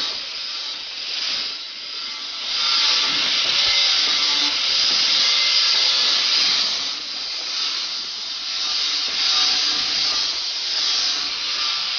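Angle grinder working a black steel pipe fitting: a steady, loud hiss of the disc on the metal with a faint motor whine, swelling and easing as the tool is pressed and moved.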